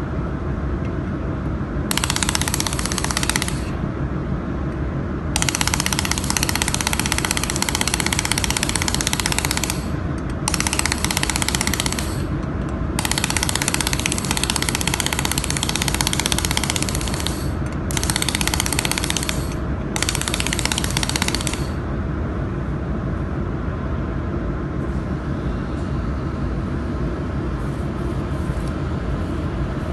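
400 W handheld laser welder firing in bursts of one to five seconds on 4 mm galvanized steel sheet, a crackling hiss over a steady low machine hum; the last burst stops about 22 seconds in.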